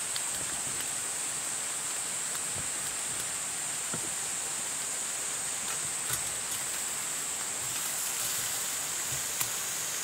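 Marinated meat and green peppers sizzling on a small charcoal grill: a steady hiss with a few faint crackles.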